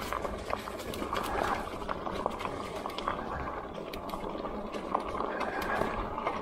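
Electric bike's tires rolling over an unpaved trail: a steady crunching hiss with scattered small clicks and ticks from the tires and bike.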